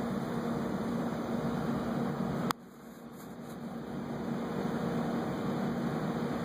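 Steady background hiss with a low hum, slowly swelling, and one sharp click about two and a half seconds in, after which it drops and builds up again.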